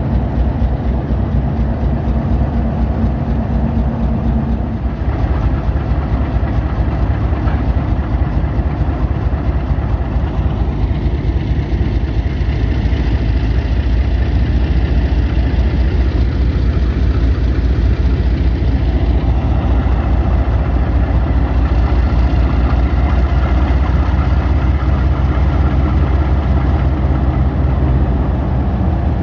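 Diesel locomotive engine running close by, a deep steady engine note with a fast even pulse; a higher tone in it stops about five seconds in.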